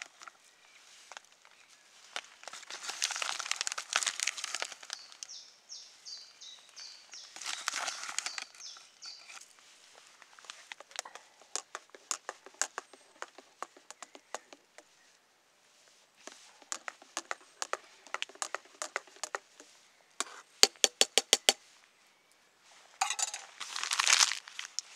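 A metal spoon stirring cowboy coffee in a metal camp pot: scattered clinks and scrapes against the pot, then a quick run of ringing taps on the rim, about eight in a second, near the end. Bursts of crinkly rustling come in between, with the last one near the end.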